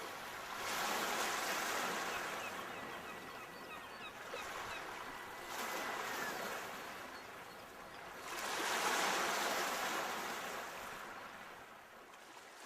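Sea waves breaking on a shore, three swells of surf that rise and ebb.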